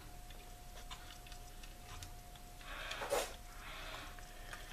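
Faint clicks and handling noise from a mini battery-powered portable sewing machine as its thread tension knob and handwheel are turned by hand, with a brief scrape about three seconds in.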